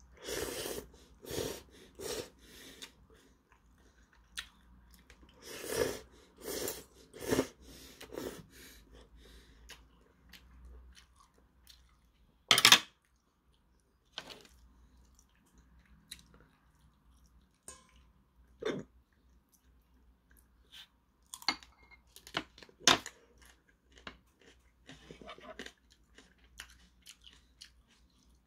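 A person slurping instant ramen noodles in repeated bursts over the first eight seconds or so, then chewing with a few short, sharp crunches. The loudest crunch comes about halfway through.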